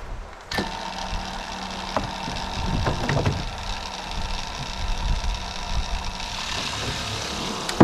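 Small 12-volt DC water transfer pump switching on about half a second in and running with a steady motor hum as it pushes water up a long hose. A sharp click at the very end.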